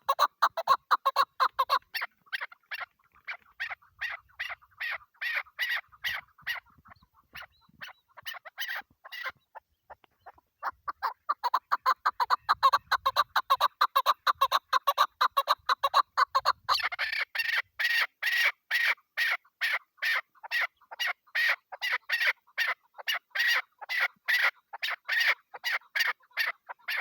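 Female chukar partridge calling: a long run of rapid, repeated clucking notes, several a second. There is a pause of a couple of seconds near the middle, and the notes turn higher about two-thirds of the way through.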